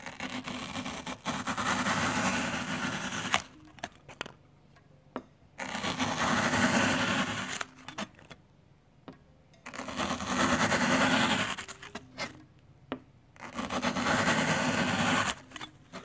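A long knife blade slicing through blocks of dry floral foam, four slow strokes of about two to three seconds each, each a loud gritty scraping crunch, with a few faint clicks in the pauses between them.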